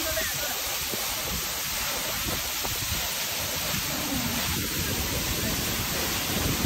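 Waterfall pouring into a shallow rock pool: a steady rushing of falling water.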